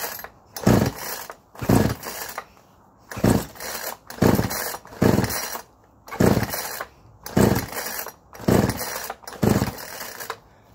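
McCulloch two-stroke chainsaw's recoil starter cord pulled about nine times, roughly once a second, each pull a short whirring burst as the engine turns over without catching. Cold start with the choke on.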